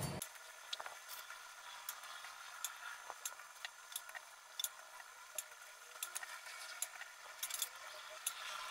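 Faint, irregular small clicks and ticks from hot cookies being pressed into a glass bowl of sugar and set down on a metal wire cooling rack.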